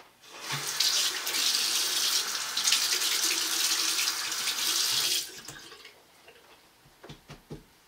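Bathroom sink faucet running into the basin for about five seconds, then turned off, followed by a few light clicks near the end.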